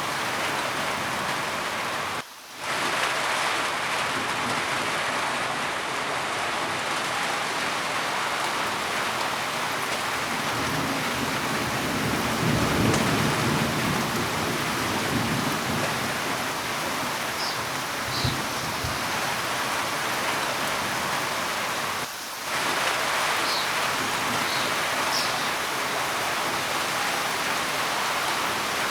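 Steady heavy rain, with a low rolling rumble of thunder about halfway through. The rain briefly drops out twice: a couple of seconds in, and again later.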